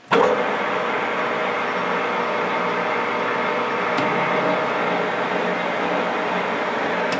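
Metal lathe starting abruptly and running steadily during a single-point threading job, its motor and gear train giving an even whine made of several steady tones. A faint click about four seconds in.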